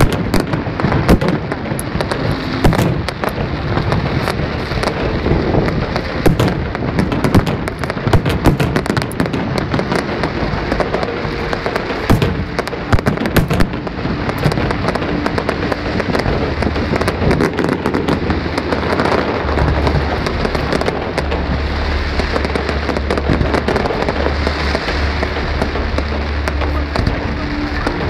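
Aerial fireworks display: a rapid run of bangs and crackling bursts, thickest in the first half. Later the sound settles into a more continuous crackle with fewer sharp reports, over a low steady hum.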